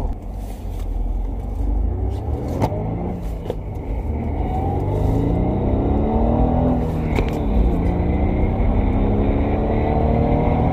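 BMW 228i's turbocharged N20 2.0-litre four-cylinder, running a stage 1 bootmod3 tune, at full-throttle acceleration from a standstill. The engine note climbs in pitch, drops at upshifts about 3 and 7.5 seconds in, and climbs again.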